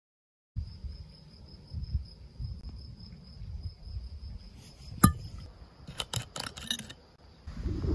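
Insects chirping steadily in a high pulsing tone over a low rumble of wind on the microphone, starting about half a second in. About five seconds in comes one sharp click, then a quick run of clicks as the screw cap of a pastis bottle is twisted open and its seal breaks.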